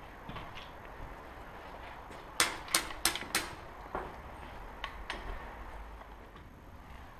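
Airsoft replica firing four quick sharp shots about a third of a second apart, followed by a few fainter clicks.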